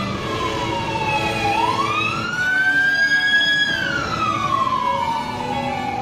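Emergency vehicle siren wailing slowly: its pitch falls, rises again about a second and a half in and holds, then slides slowly down once more.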